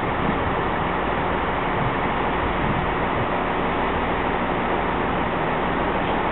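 Class 158 diesel multiple unit drawing slowly into the platform, its engines running under a steady rushing noise.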